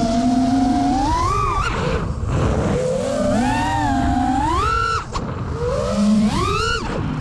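FPV quadcopter's brushless motors whining, the pitch swinging up and down with the throttle. It climbs sharply in three throttle punches, with a brief cut-out about five seconds in.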